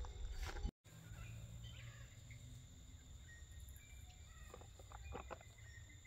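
Faint outdoor ambience: a steady high insect drone with a few faint bird chirps over a low rumble. The sound drops out for an instant under a second in, and a few faint ticks come near the end.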